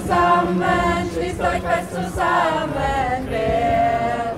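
A group of voices singing a German protest song in chorus, with a steady low tone underneath.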